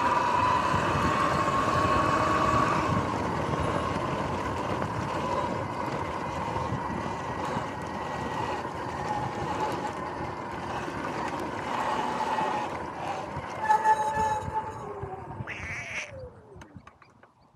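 Sur-Ron X electric dirt bike riding over grass: a steady electric motor whine with tyre and wind noise. The bike slows about three-quarters of the way through, with a brief squeal from the brakes, and the whine falls in pitch and fades as it rolls to a stop.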